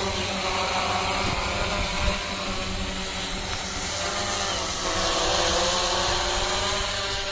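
Hexacopter drone's electric motors and propellers buzzing in flight, the pitch sagging and rising again as the throttle changes, over a steady rush of propeller air.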